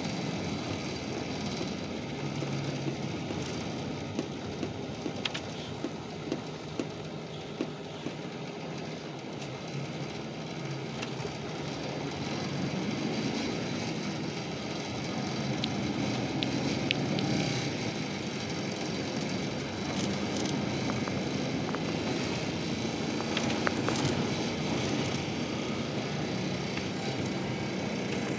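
Steady engine and tyre noise heard from inside a moving bus, with a few short sharp clicks between about four and seven seconds in.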